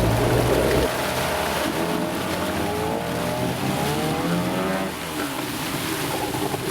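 15 HP Yamaha outboard motor running hard on a 3D-printed polycarbonate propeller. It eases off about a second in, then its note rises and falls as the throttle changes.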